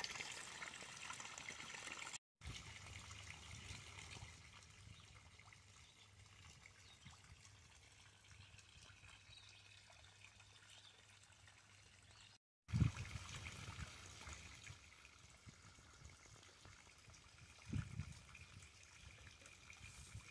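Faint, steady trickle and splash of a backyard pond's waterfall, fed by a 7,000-gallon-an-hour submersible pump. There is a dull low thump a little past halfway and a softer one near the end.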